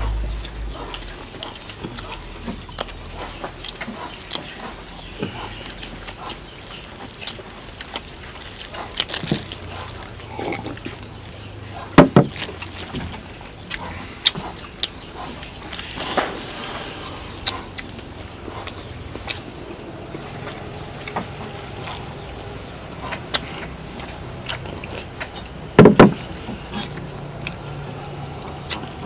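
People eating roast duck: chewing and tearing at the meat, with many small clicks and smacks. There are two sharp knocks, about twelve seconds in and again near the end.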